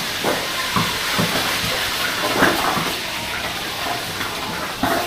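Steady hissing noise with scattered short knocks and clatters, the sharpest about halfway through.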